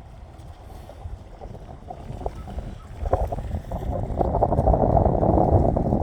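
Floodwater rushing steadily, with wind rumbling on the microphone; it grows louder from about three seconds in.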